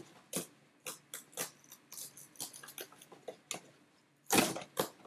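Perforated cardboard box being pressed and pushed apart by hand: scattered small cracks and crinkles as the perforations give, with a longer, louder rustle about four and a half seconds in.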